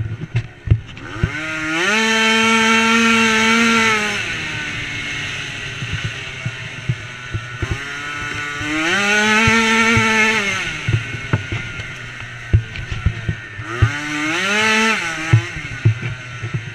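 Small engine of a DRR 90 off-road racing quad revving hard three times, each time climbing quickly in pitch, holding high, then dropping back (the last rev the shortest). Between the revs it runs at a lower, uneven pitch, with sharp knocks and rattles as the machine bounces over rough ground.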